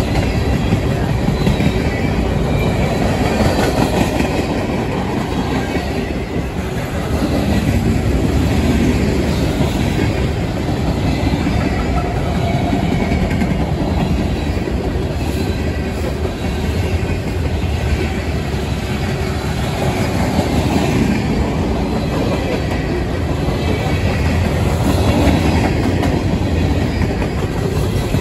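Freight cars of a CSX manifest train rolling past, a steady rumble of steel wheels on rail.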